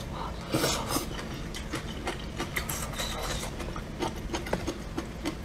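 Close-up eating sounds: a short slurp of noodles about half a second in, then chewing with small wet mouth clicks and light taps of chopsticks.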